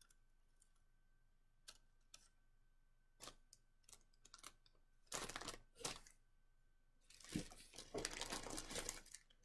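Hands handling wool roving and a plastic fiber packet. At first there are sparse light clicks and rustles, then louder crinkling and rustling from about halfway through, heaviest near the end.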